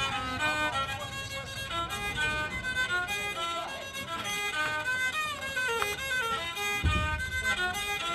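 Background music led by a bowed fiddle, playing a melody with sliding notes. A low thump comes near the end.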